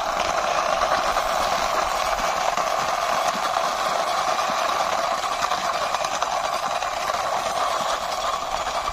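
A toy motorcycle's plastic wheels rolling steadily along the ground as it is pushed by hand: a continuous, even noise with no pitch.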